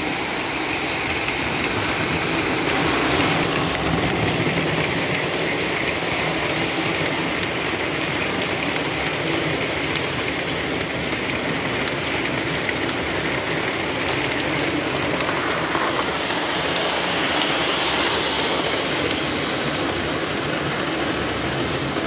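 Lionel O-gauge model train with passenger cars running around the track: a steady noise of metal wheels on the rails and the locomotive's motor.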